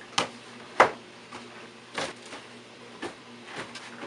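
Cardboard gift boxes being set down and stacked on a bed: about five short knocks and scuffs, the second one the loudest, over a faint steady hum.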